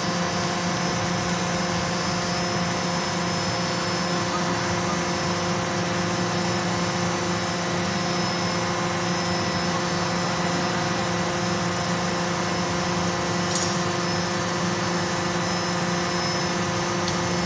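Steady hum of hydraulic machinery with several held tones: the hydraulic pump motors of a CNC hydraulic die forging hammer running idle, with no hammer blows. A faint short click sounds about three-quarters of the way through.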